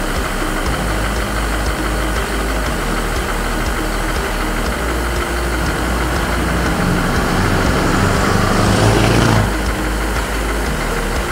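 Scania 164L truck's V8 diesel engine running as the tractor unit drives up and past, growing louder to a peak about nine seconds in and then dropping off suddenly.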